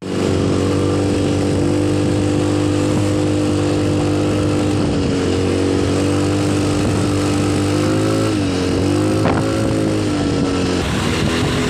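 Motorcycle engine running at a steady cruising speed, with wind rushing over the microphone. Its pitch dips briefly twice, about five and eight seconds in.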